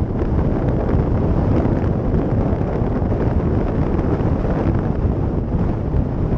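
Steady wind rush buffeting the microphone of a helmet camera on a moving Yamaha YS 125 motorcycle, with the bike's engine and tyre noise mixed in underneath. The sound is loudest and deepest at the low end and shows no clear engine pitch.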